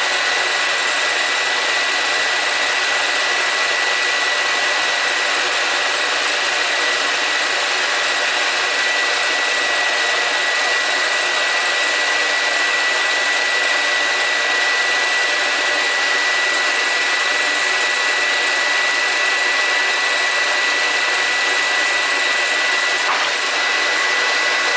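Film projector running steadily: a whirring motor and fan with a thin, high, unchanging whine.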